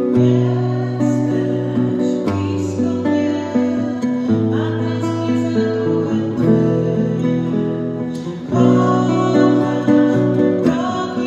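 Acoustic guitar strumming sustained chords, changing chord about every two seconds, ringing on in the reverberant church.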